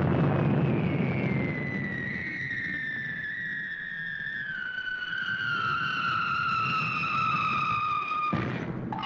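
Cartoon sound effects: the rumble of a cannon blast dying away, then a long falling whistle as the fired dog flies through the air. The whistle drops slowly in pitch and cuts off suddenly about a second before the end.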